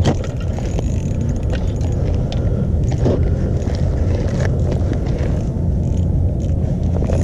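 Wind buffeting the camera's microphone: a steady low rumble, with a few faint scrapes and clicks over it.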